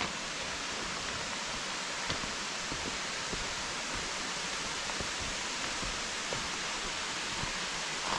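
Waterfall rushing: a steady, even hiss of falling water, with a few faint clicks over it.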